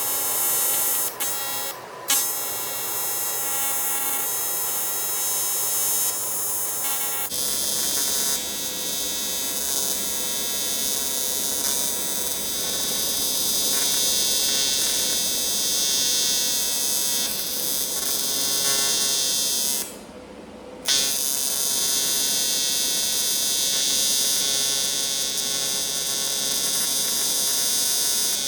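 AC TIG welding arc buzzing steadily on aluminum. The arc breaks very briefly about two seconds in, then stops for about a second near twenty seconds in and strikes again.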